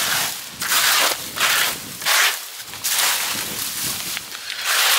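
Ivy and dry plant growth being ripped up by hand: a run of rustling, tearing pulls, about five in a row.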